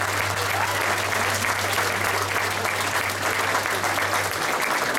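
Audience applauding, many hands clapping, with a steady low hum that cuts off about four seconds in.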